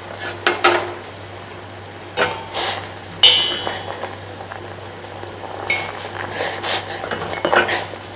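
Metal ladle clinking and scraping against the inside of a metal cooking pot, in scattered strokes, as herbs are stirred in the boiling kashayam; one stroke rings briefly. A steady low hum runs underneath.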